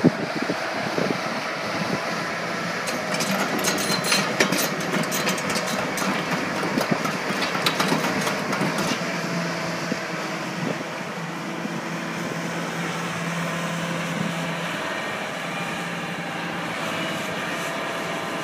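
Case 9040B hydraulic excavator's diesel engine running steadily, with a stretch of metallic clattering from about three to nine seconds in.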